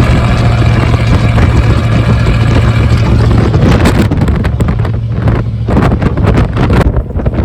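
Ford 302 V8 in a 1982 F-150 with a 3-to-4-inch step exhaust, droning at steady low revs while driving. From about halfway, gusts of wind on the microphone break up the sound.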